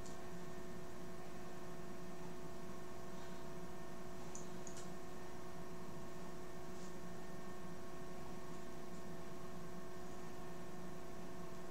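Steady electrical hum made of several constant tones, with a few faint ticks about four to five seconds in and again near seven seconds.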